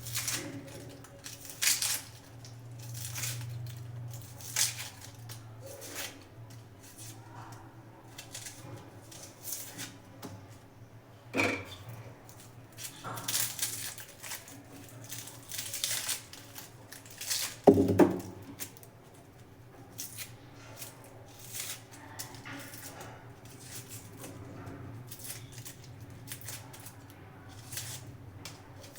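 Onion being peeled by hand: scattered short rustles, crackles and scrapes of dry papery skin, with a couple of sharper knocks on the work surface, the loudest a little past halfway. A faint steady low hum lies underneath.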